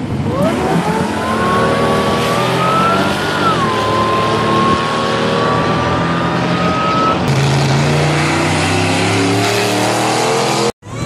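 Supercharged GM 3800 V6 of a Pontiac Fiero revving hard under acceleration, with a high whine that climbs with the revs, dips at a gear shift about three and a half seconds in, then climbs again. About seven seconds in it gives way to a lower, steadier engine running, and the sound drops out briefly near the end.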